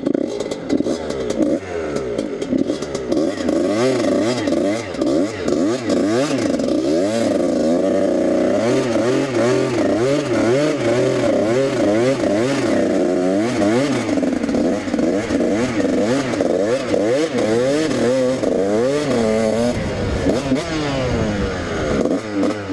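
Dirt bike engine revving up and down repeatedly as it is ridden, its pitch rising and falling many times in quick succession.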